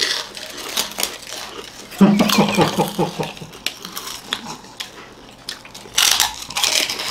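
Crisp, hollow puffed finger chips being bitten and chewed by several people at once: a run of quick, sharp crunches and cracks, with a brief muffled voice through a full mouth about two seconds in.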